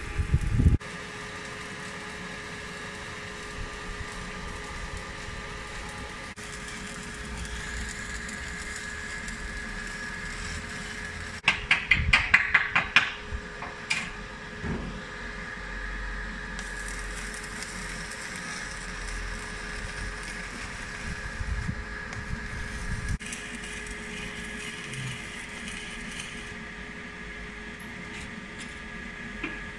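Electric arc welding on a steel stair frame: a steady crackling hiss from the arc. About twelve seconds in there is a brief run of rapid, loud knocks.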